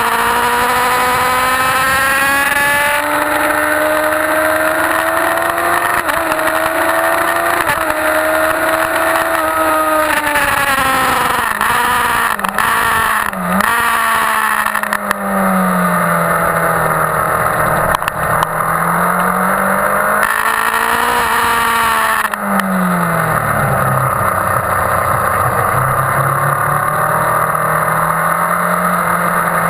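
Onboard sound of a 2001 Yamaha YZF-R1's inline-four engine at track speed. It revs up hard to a gear change about three seconds in, holds high, drops with short blips as it slows twice (around twelve seconds and again after twenty-two), then pulls back up, all under steady wind rush on the microphone.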